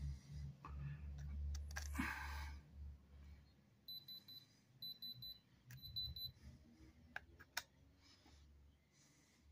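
Handheld diamond tester (Diamond Selector II type) beeping three times, short high beeps about a second apart, while its probe is held against a rock; the beep is the tester's alert for a reading in its top, diamond range. Soft rustling and a few sharp clicks of the tester being handled come before and after the beeps.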